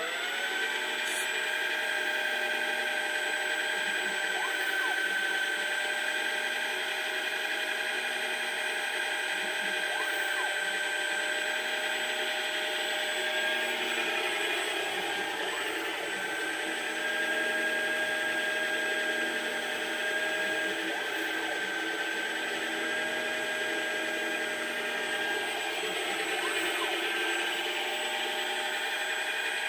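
Motors of a DIY CNC lathe running an OD-turning G-code program without a workpiece: a steady, multi-tone electric whine that comes up to speed right at the start, with a few brief pitch swoops and shifts as the axes move.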